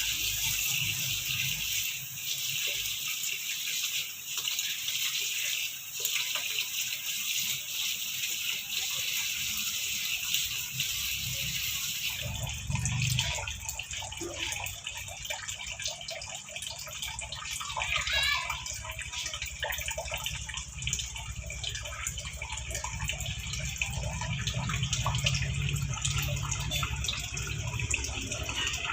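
Tap water running steadily into a sink. About twelve seconds in, the flow sound changes to a lower, fuller rush with less hiss.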